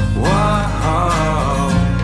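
Background music: a country-style song with guitar.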